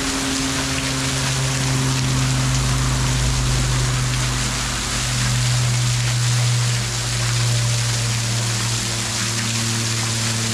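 Waterfall rushing in a steady, even roar of water. Under it a vehicle engine hums low and steady, starting just after the beginning.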